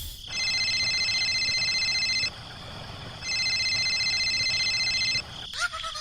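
Electronic ringing tone, like a phone's: two rings of about two seconds each, a second apart.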